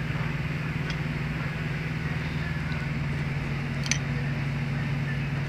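A steady low mechanical hum, like a running engine or shop machinery, with a single sharp click about four seconds in from a hand tool handled against the truck's metal.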